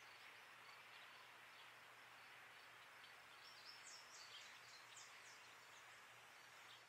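Near silence: faint room tone with a steady low hum and hiss, and a few faint high chirps around the middle.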